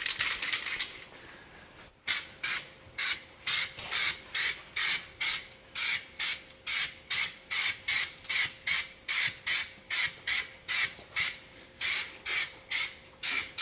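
Air-powered spray gun applying Raptor bed liner: a hiss at the start, a pause, then short trigger bursts of spray about twice a second. A faint steady hum runs underneath.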